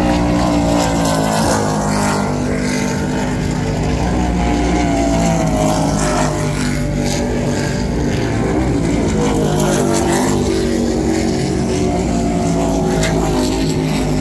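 Supercat-class offshore race boat running flat out as it passes, its engines giving a steady, many-toned drone whose pitch slowly sinks.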